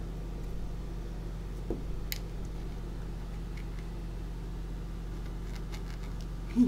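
Steady low electrical hum, with a few faint scrapes and ticks, one sharper tick about two seconds in.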